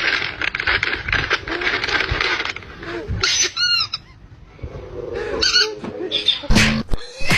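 Animal calls: a harsh, noisy crying for about two and a half seconds, then a few short calls that bend in pitch.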